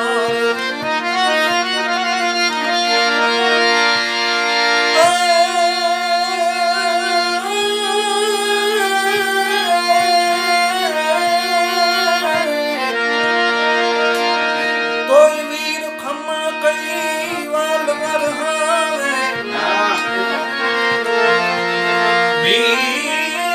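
Paul & Co harmonium playing a folk-song melody over steady held drone notes, with a brief loud accent about fifteen seconds in.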